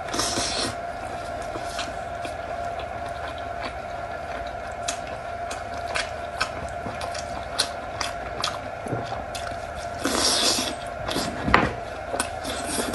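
Close-miked eating of braised pork: wet chewing and smacking with many small sticky clicks, and a louder noisy burst about ten seconds in, over a steady background tone.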